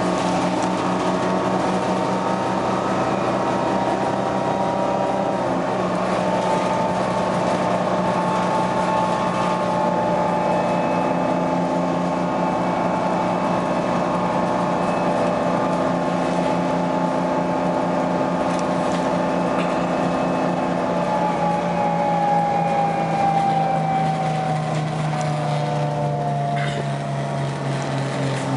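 Detroit Diesel 6V71N two-stroke V6 diesel of a 1980 GM New Look bus running under way, heard from inside the passenger cabin. Its note holds steady, then falls a little in pitch over the last several seconds.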